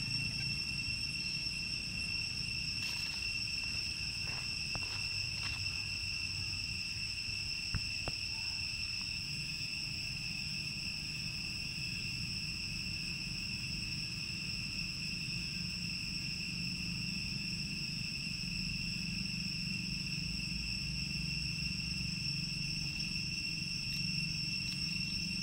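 Insects droning steadily at one high pitch without a break, over a low rumbling noise, with a few faint clicks in the first several seconds.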